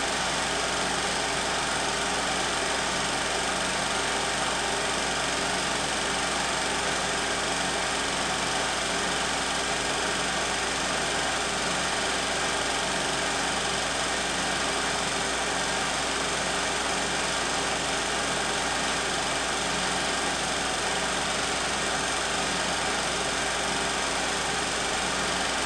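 16 mm film projector running: a steady, unchanging mechanical whir from its motor and film transport.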